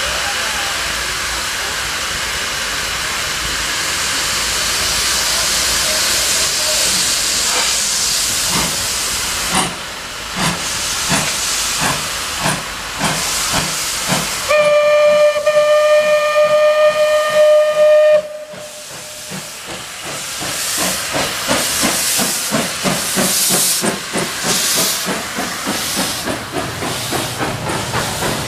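Steam locomotive pulling away: a steady hiss of escaping steam, then exhaust chuffs that start about a third of the way in and quicken as it gathers speed. In the middle, one long steam-whistle blast of about four seconds.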